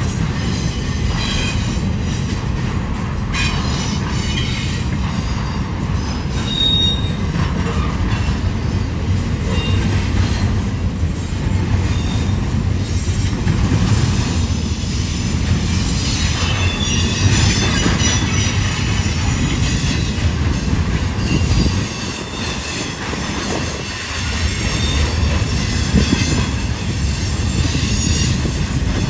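Double-stack intermodal container cars of a freight train rolling past, a steady rumble and clatter of steel wheels on the rails, with brief high wheel squeals now and then.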